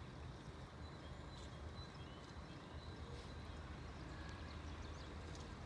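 Quiet outdoor background: a low steady rumble with faint, brief bird chirps and a few light ticks.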